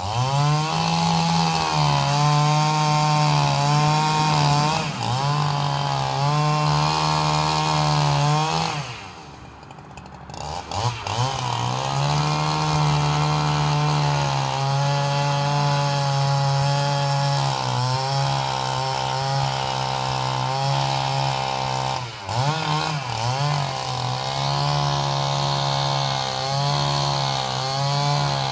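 Two-stroke chainsaw run at full throttle, cutting into the trunk of a large elm. The engine drops back to idle for a couple of seconds about a third of the way through, then revs up again to keep cutting, and eases off once more briefly near the end.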